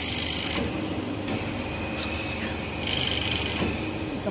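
Band saw blade sharpening machine running with a steady hum, broken by two short bursts of high hiss: one ending about half a second in, the other about three seconds in.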